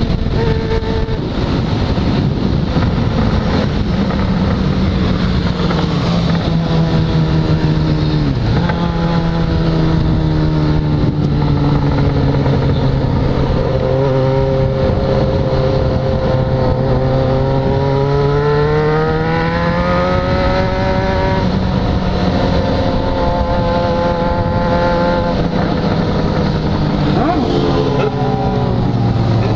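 Yamaha XJ6 inline-four motorcycle engine under way at cruising speed, heard from the bike itself over steady wind and road rush. The engine note holds, dips at a gear change about eight seconds in, climbs in a long pull in the middle, and settles again.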